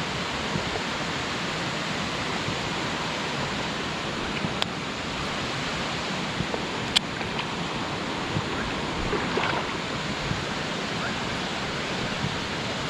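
Steady rush of water from a waterfall and stream, with two sharp clicks about four and a half and seven seconds in.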